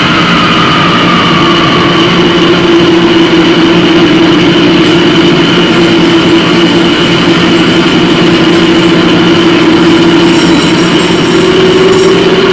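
Loud, dense drone of live noise music: amplified electronics holding steady tones over a thick hiss, with no beat. The low held tone bends slightly upward near the end.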